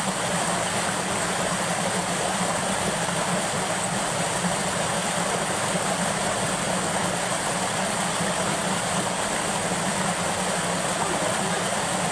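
Water pouring over a small concrete dam outlet and sheeting across its apron: a steady, even rush with no breaks.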